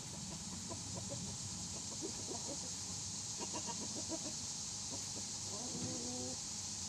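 Chicken clucking: a run of short clucks over the first few seconds, then one brief pitched call near the end, over a steady hiss.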